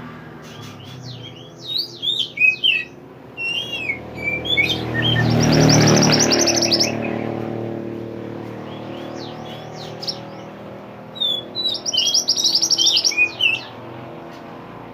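Mantenan songbird singing: bursts of sharp, quick chirps and swooping notes, with two fast, rattling trills about five seconds in and again about eleven seconds in, over a steady low hum.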